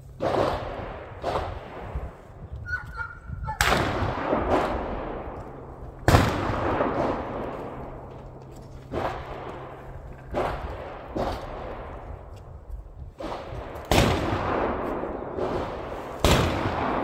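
Gunshots from a shooting range: about a dozen single shots at irregular intervals, each followed by a long, fading echo.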